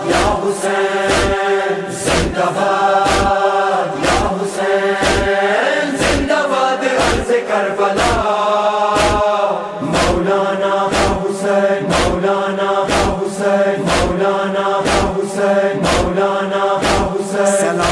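Urdu devotional chant in praise of Imam Hussain, sung by a group of voices in long held lines. Under it runs a steady beat of sharp strikes, about two a second.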